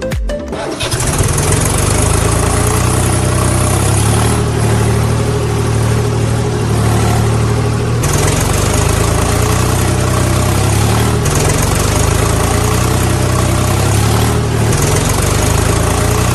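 A heavy vehicle's engine starts up about a second in, then runs steadily at a loud, even idle.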